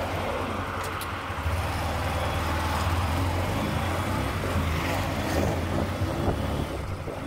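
Motorcycle engine running steadily at road speed, with a constant wind and road rush.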